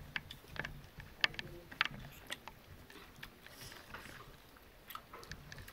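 Eating by hand: irregular small wet clicks and smacks as fingers mix and scoop biryani rice on a banana leaf and mouths chew.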